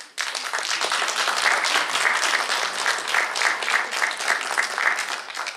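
Audience applauding, starting suddenly and dying down to scattered claps at the end.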